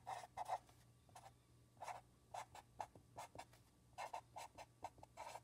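Felt-tip permanent marker writing on paper: a faint string of short separate strokes, coming closer together about four seconds in.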